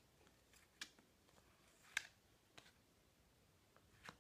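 Faint, scattered ticks and flicks of Topps Match Attax trading cards being leafed through by hand, four or so short clicks over near silence, the sharpest about two seconds in.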